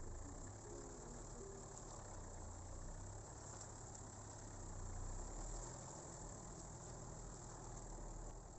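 Faint, steady chorus of chirring insects, with a low rumble underneath.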